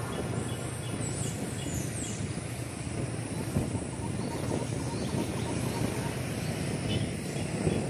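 Wind buffeting a handheld microphone on a moving motorcycle, with the bike's engine and road noise mixed in as a steady rush.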